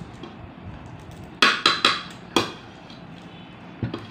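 Four sharp knocks on a hard surface, three in quick succession and a fourth about half a second later, then a fainter knock near the end.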